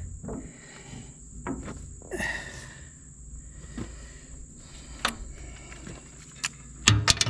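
Scattered metal clinks and knocks from tools working a blade and its bolt on a mower deck spindle, with a brief scrape about two seconds in and a louder cluster of knocks near the end. A faint steady high whine runs underneath.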